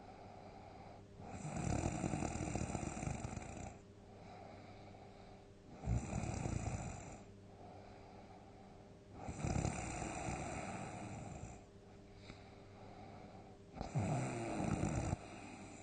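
A person snoring loudly in deep sleep: four big, rasping snores about four seconds apart, with quieter breaths between them.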